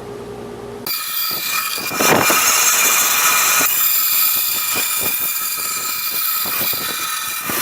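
A power saw starts about a second in and runs steadily while cutting out a template, a high motor whine over a hiss. It gets louder about two seconds in, as the blade takes the cut.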